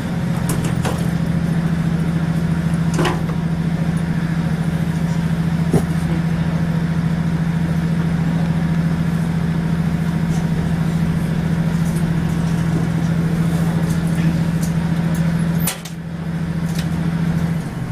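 Class 156 Super Sprinter diesel multiple unit heard from inside the passenger saloon, its underfloor Cummins diesel engine running under power with a steady low drone. The drone drops off suddenly about 16 seconds in, picks up briefly, then falls away again near the end. A few sharp clicks sound over it.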